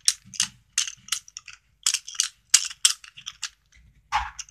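Toy sonic screwdriver from Character Options, the 9th/10th Doctor model, shaken and rattling in quick, irregular clicks, with a fuller knock near the end. Its screw has been loosened a little so the parts inside sound a bit loose.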